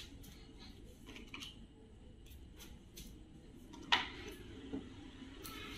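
Faint clicks and light knocks from small objects being handled in a quiet room, with a sharper click about four seconds in.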